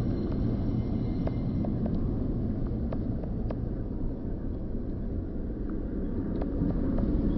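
Road and engine noise of a moving car heard from inside the cabin: a steady low rumble with a few faint clicks.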